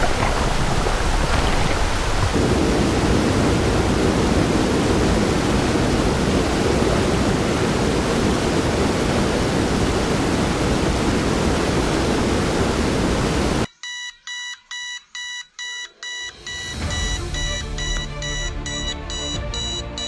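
Rushing water of a rocky waterfall cascade, a steady loud noise, cut off suddenly about 14 seconds in by a beeping alarm tone, about six beeps, followed by music.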